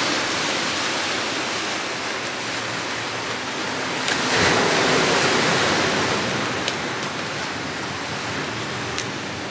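Paper stencil being peeled off a spray-painted canvas: a rustle and crackle of paper swelling a little after four seconds in, with a few sharp ticks later, over a steady hiss.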